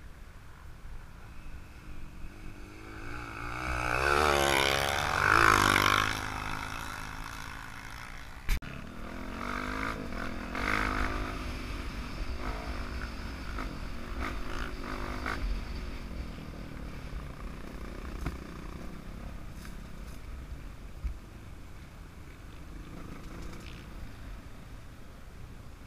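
Dirt bike engine revving up and falling back as it rides a trail, loudest a few seconds in, with a single sharp click about eight and a half seconds in.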